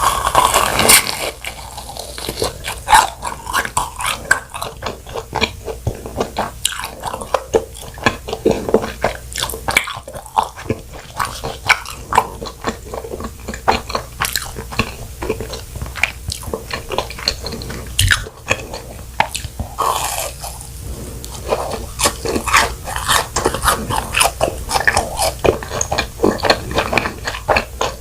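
Close-miked eating of fried cheese balls: bites into the crisp fried crust, then continuous wet chewing with many small sharp crackles.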